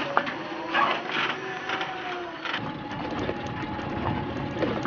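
Electric three-wheeled cargo tricycle riding over a gravel dirt track: a steady thin motor whine over the rattle and crunch of the tyres and frame. A heavier rumble comes in about halfway.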